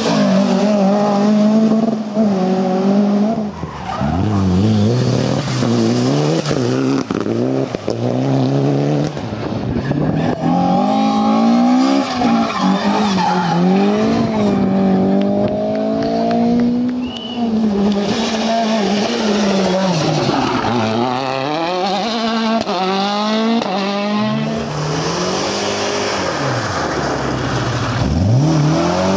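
Rally cars, Opel saloons and a BMW E30, driven hard in turn. The engines rev up and fall away again and again through gear changes and lifts, with tyres skidding and squealing through the slides.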